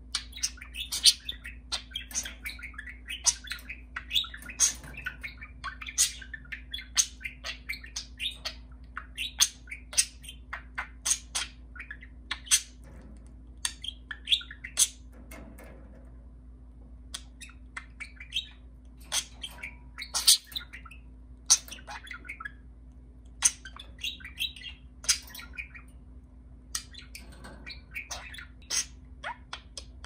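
Budgerigar chattering excitedly: a rapid run of chirps, clicks and warbles, with a couple of short pauses.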